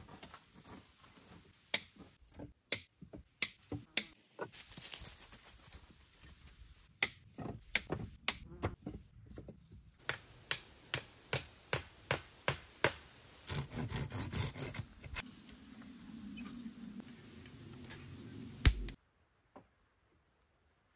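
Hand-tool work on wood: a string of sharp knocks and taps, running at about two a second for a few seconds in the middle, followed by a few seconds of steadier low noise and one loud knock, after which the sound cuts off suddenly.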